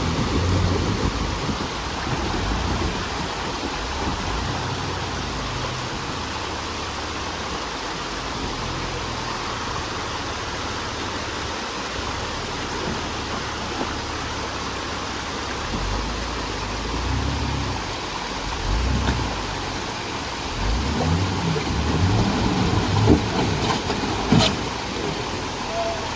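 Jeep TJ engine revving in surges as it crawls up a rock ledge, over a steady hiss, with a sharp knock about two seconds before the end.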